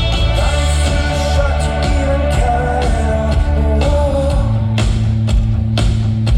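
Live rock band playing through an arena PA: sustained guitar and bass chords under a singer's held, wavering notes. A drum kit comes in on a steady beat about five seconds in.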